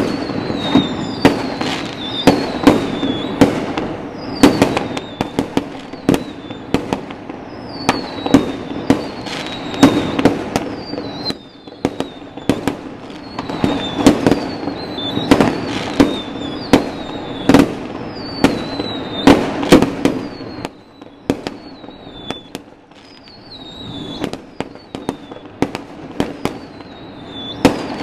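Aerial fireworks going off in quick succession: many sharp bangs overlapping, with repeated whistles that fall in pitch. The bangs thin out for a few seconds about three quarters of the way through, then pick up again.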